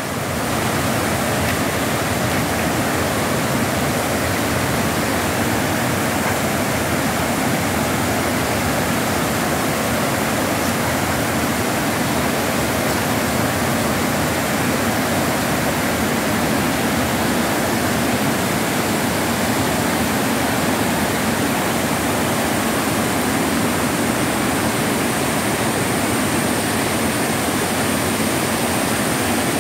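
Creek water rushing steadily over boulders in a run of small cascades and rapids, a constant even roar with no break.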